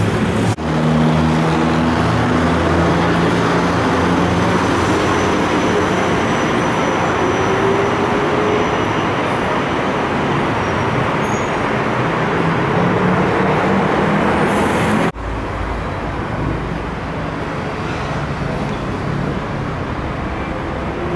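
Loud, steady road traffic noise with a low engine hum, cutting abruptly to a quieter, steady rumble about 15 seconds in.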